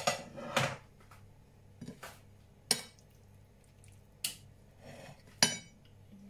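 Kitchen utensils and pans clinking and knocking: about six separate sharp clinks spread out, as a spoon and pans are handled on the counter.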